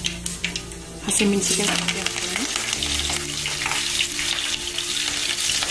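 Hot oil in a kadai crackling with spluttering mustard and cumin seeds. About a second in, green chillies and curry leaves go in, and the oil sizzles loudly and steadily.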